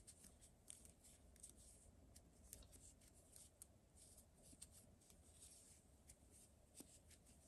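Near silence with faint, irregular small clicks and rustles of crochet work: a crochet hook drawing cotton yarn through stitches.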